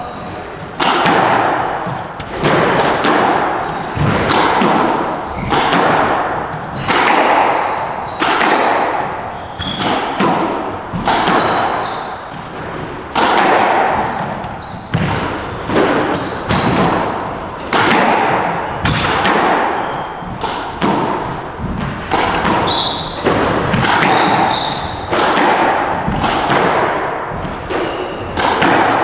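A squash rally: the hard rubber ball struck by racquets and smacking off the court walls about once a second, each hit echoing briefly in the enclosed court. Short high squeaks of court shoes on the hardwood floor come between the hits.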